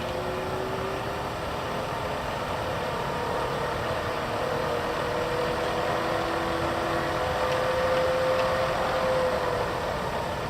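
Bridgeport 1-1/2 HP vertical milling machine head running, its whine rising slowly in pitch as the variable-speed drive is dialled up and easing back down near the end. The speed change is a little slow because the head's new bushings are not yet broken in, and some grease slings around inside the freshly rebuilt head.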